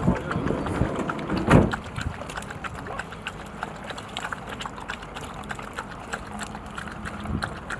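Stray dogs: a bark at the start and a louder bark falling in pitch about a second and a half in, then quieter scattered clicks and ticks from the pack at the trough.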